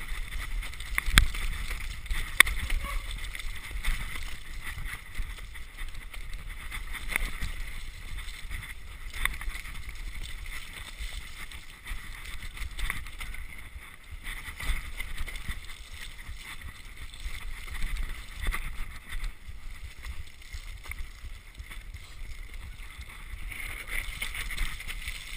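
Downhill mountain bike descending a steep, slippery dirt track: a steady rumble of wind and ground noise on the microphone with the rattle and clatter of the bike over bumps, and a couple of sharp knocks in the first few seconds.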